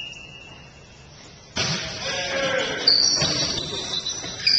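A whistle blast tails off. About a second and a half in, a burst of crowd voices starts suddenly, with short high whistle tones sounding over it twice.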